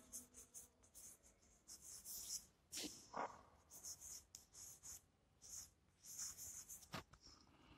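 Faint scratching of chalk on a blackboard as words are written in short strokes, with a few sharper taps of the chalk against the board.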